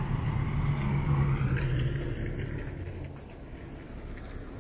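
A diesel city route bus running as it pulls up to the stop and slows, its engine hum easing toward the end.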